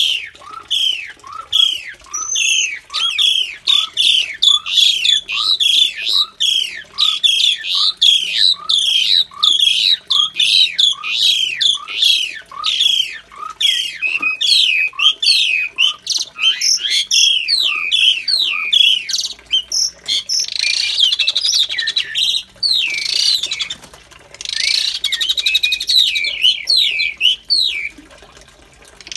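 Asian pied starlings calling: a quickly repeated call, about one and a half a second, each a short rising note with high falling whistles. After about twenty seconds this gives way to two spells of denser, harsher chatter.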